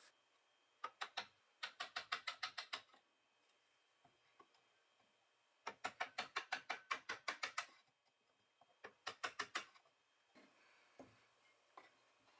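Runs of rapid, sharp clicks, about eight a second, in four bursts of between half a second and two seconds, with near silence between them.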